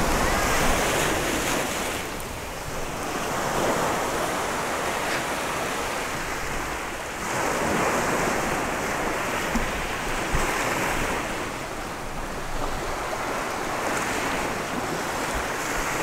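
Sea surf washing onto the beach, swelling and fading in slow surges every few seconds, with wind buffeting the microphone now and then.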